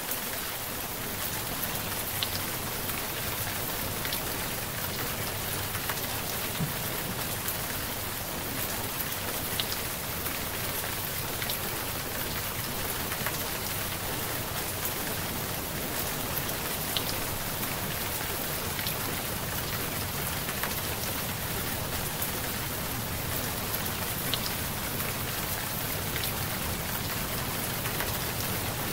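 Steady rain falling, an even hiss with scattered individual drop ticks.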